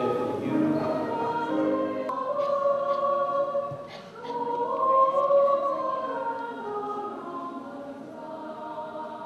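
Choir singing sacred music, with long held notes.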